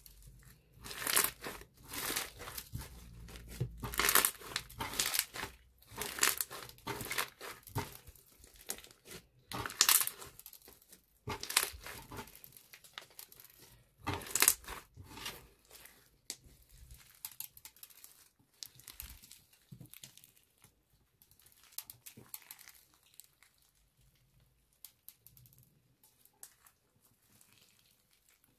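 Thick black slime studded with foam beads being kneaded, pressed and stretched by hand, giving irregular squishing crackles and pops. The bursts come thick and loud through the first half and thin out and grow quieter in the second half.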